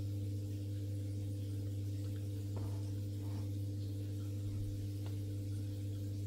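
Steady low electrical hum from the aquarium equipment under the cabinet, with a couple of faint ticks.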